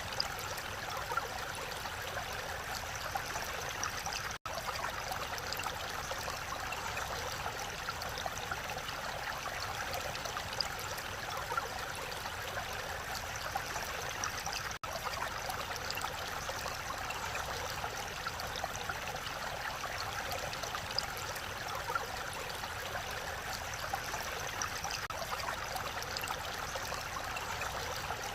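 Mountain valley stream rushing steadily over rocks: an even, unbroken wash of water sound. It cuts out for an instant twice.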